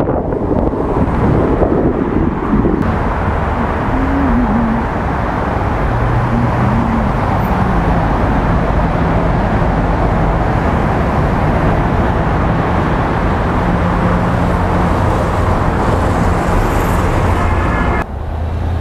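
Motorcycle riding, heard through a helmet-mounted action camera: steady wind and road noise with an engine hum whose pitch shifts up and down a few times.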